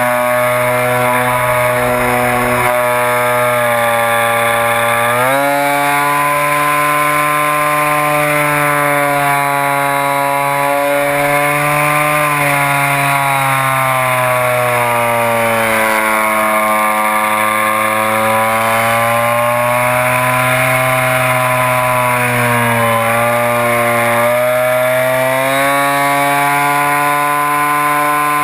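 ICON A5 RC model airplane's motor and propeller running, heard from a camera mounted on the plane. The pitch steps up about five seconds in, sags slowly through the middle, and climbs again near the end as the throttle and motor speed change.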